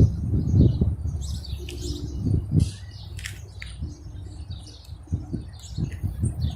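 Small birds chirping repeatedly over a low rumble; the rumble eases off through the middle and comes back near the end.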